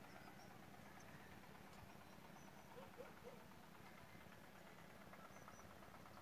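Near silence: faint outdoor mountain ambience with a few faint, short, high bird chirps scattered through it, and three soft short calls just under halfway.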